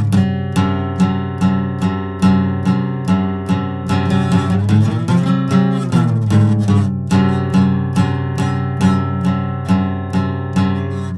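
Instrumental break in a song: an acoustic guitar strummed in an even rhythm, with no singing.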